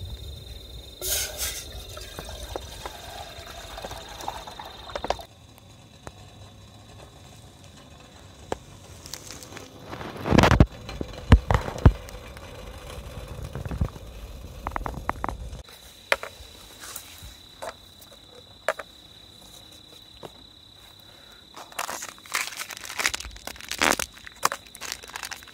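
Crickets trilling steadily, with water poured from a plastic water bag into a small aluminium camping kettle in the first few seconds. A loud knock and a few clicks come about ten seconds in, and foil sachets of instant coffee crinkle near the end.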